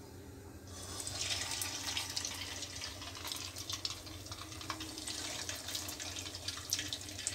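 Bread-wrapped aloo bondas going into hot oil in a kadhai: a sizzle with fine crackling starts suddenly just under a second in and keeps going steadily as they deep-fry.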